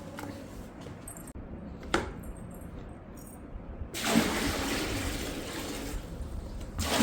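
Water poured from a bucket into an air cooler's tank, a steady splashing rush that starts about four seconds in, after a single knock about two seconds in.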